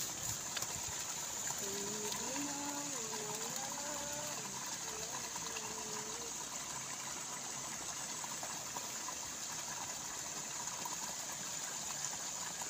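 Steady rushing of water gushing through a small rice-field ditch. A faint wavering tone comes and goes between about two and six seconds in.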